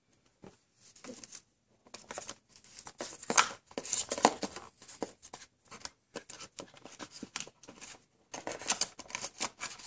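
Hands handling cardboard packaging: irregular rustling, scraping and soft knocks as cardboard pieces are shifted and an inner compartment is worked out of the box.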